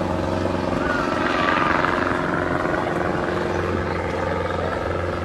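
Police helicopter flying overhead, its rotor and engine noise swelling to its loudest about two seconds in, then slowly easing off.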